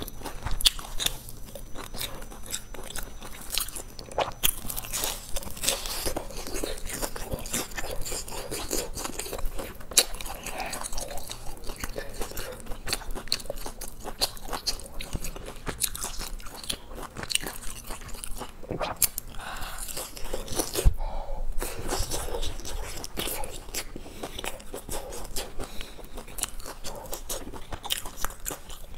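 A person biting and chewing crisp deep-fried filled cakes close to a clip-on microphone: a dense, irregular run of crunches and crackles from the fried crust, with wet chewing between them.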